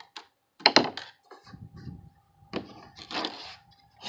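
Handling noise from taking apart a laptop: a sharp plastic click about two-thirds of a second in, a few light ticks, then two short scraping rubs as a small screwdriver is worked against the plastic hinge housing.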